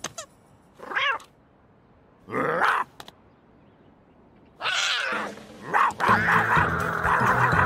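Cartoon cat yowling in several short, separate outbursts with silence between them. Background music starts about six seconds in.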